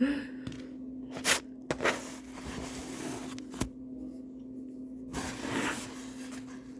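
Small toys and packaging being handled: a few sharp light clicks and soft rustles, over a steady low hum.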